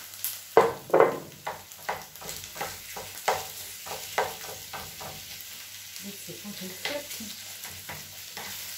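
Minced beef frying with onion in a frying pan: a steady sizzle, with two louder knocks near the start as the meat is tipped in from a bowl, then a run of scraping strokes, several a second, as a spatula stirs and breaks up the meat.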